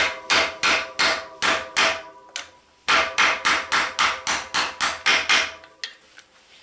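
Hammer striking a 13 mm socket on an extension bar, about three blows a second in two quick runs with a short pause in the middle and a few lighter taps near the end, each blow with a metallic ring. The blows are driving a sealed cartridge bearing out of a DT Swiss bicycle hub.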